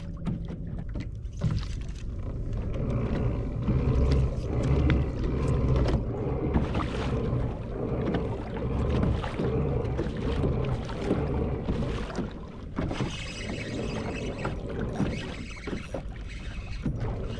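On-board sound of a fishing kayak on the water: a fluctuating low rumble with a hissing haze above it, broken by a few sharp clicks.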